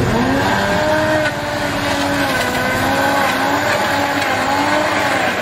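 Electric blender running with a fruit shake in its jug. The motor whine rises as it comes up to speed at the start, then wavers up and down in pitch under the changing load.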